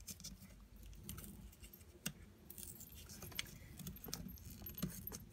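Faint, irregular crinkling and small tearing clicks of a paper tear strip being pulled off along the perforated edge of a cardboard album package.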